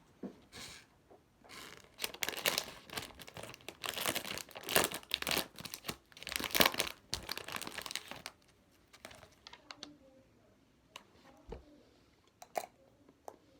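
Crinkly packaging being handled and torn open, with dense crackling for several seconds, then a few scattered light clicks and taps.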